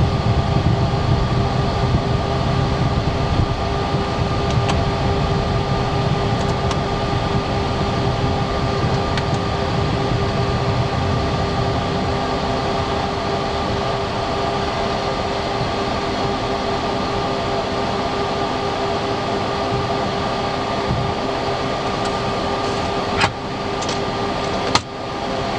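Steady cockpit hum of a Cessna Citation Latitude taxiing on its idling Pratt & Whitney PW306D turbofans, with a couple of held tones in the drone. Two short clicks near the end.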